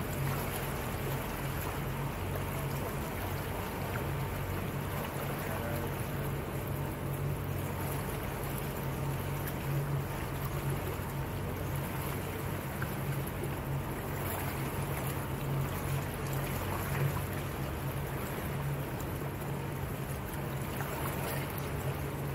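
Small motorboat's engine running steadily at low cruising speed, a low even hum, with water washing along the hull.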